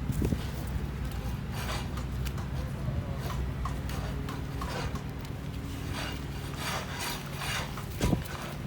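Footsteps in slush and snow at a walking pace, about one step a second, over a steady low rumble, with a low thump near the end.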